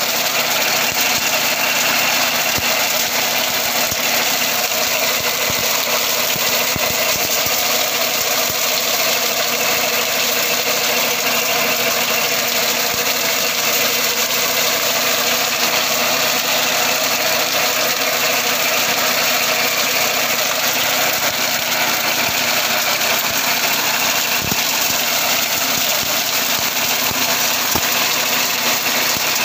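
Mini tractor engine running steadily, driving a sugarcane de-trashing machine whose belt-driven drums spin as it works through the cane rows, with a constant mechanical rattle over the engine drone.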